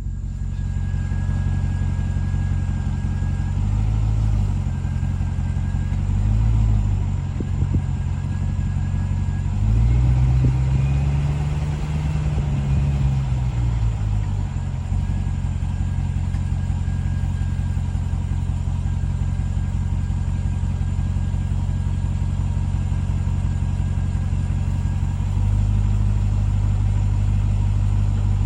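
Ram TRX pickup giving off a steady low humming noise, the complaint being demonstrated. The hum swells and rises then falls in pitch a few times, longest about ten seconds in, and grows louder near the end.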